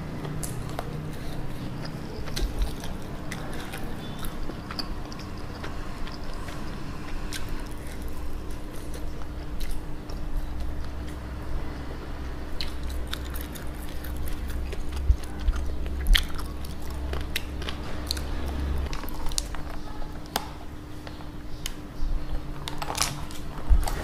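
Close-miked eating of sauced fried chicken: biting and chewing as meat is gnawed off a drumstick bone, with many short, sharp wet mouth clicks over a steady low hum.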